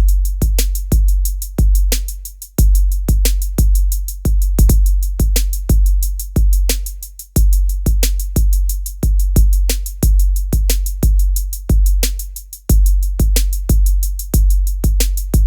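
Heavy electronic drum beat: sharp kick and snare hits over long, very deep bass notes, with fast, steady hi-hat ticks on top.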